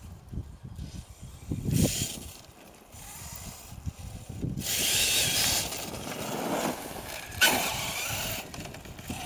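HPI Savage Flux RC monster truck with a brushless motor on a 4S LiPo, driving on packed snow: its drivetrain runs in bursts and its tyres spin and spray snow. The noise is loudest in the second half, with a sharp knock about seven and a half seconds in.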